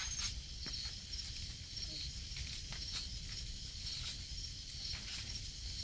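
Brush-and-dead-branch bonfire crackling, with scattered sharp pops, over a steady high chirring of night insects and a low rumble.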